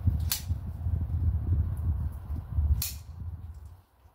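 Resin applicator gun being pumped to inject polyester resin into a brick joint: two short, sharp trigger clicks about two and a half seconds apart, over a low rumble on the microphone that fades near the end.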